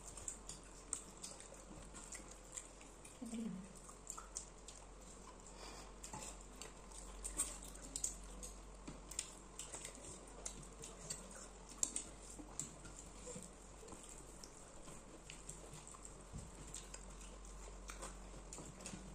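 Quiet eating sounds: fingers mixing rice and curry on plates and soft chewing, heard as many small scattered clicks and ticks, with an occasional light clink of dishes.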